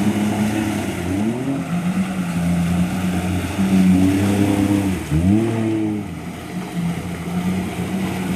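An off-road 4x4's engine working under load. Its revs climb sharply twice, about a second in and again about five seconds in, between stretches of steady running.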